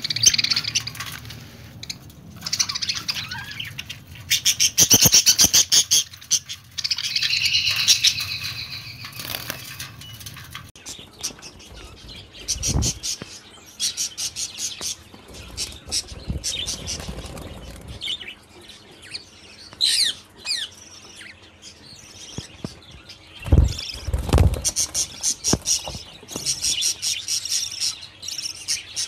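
Budgerigars chirping and chattering in rapid, high, warbling runs, with a few dull thumps mixed in, the loudest a pair about two-thirds of the way through.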